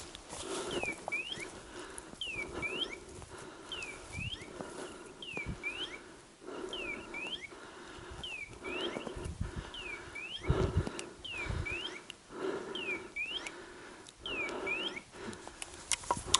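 Hunting dog's beeper collar sounding an electronic two-part chirp, a falling then rising tone, repeated evenly about every second and a half.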